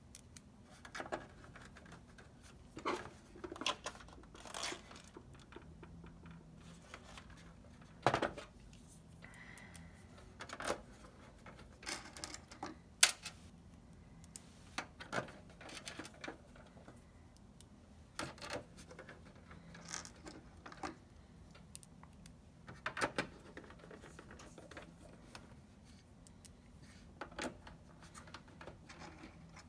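Irregular clicks, taps and light metallic knocks as hands handle and fit the stamped-steel shield plate of a PS4 console, with a couple of sharper knocks about eight and thirteen seconds in.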